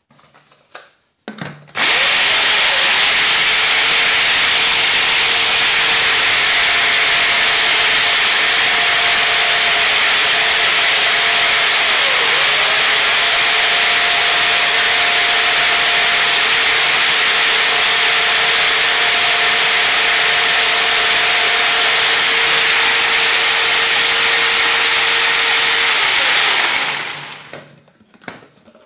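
Homemade feed blender: a corded electric drill spins a blade inside a plastic drum, chopping dried corn kernels into coarse feed. The loud, steady, noisy running starts suddenly about two seconds in, dips briefly in pitch midway as the load bites, and runs down near the end when the drill is released.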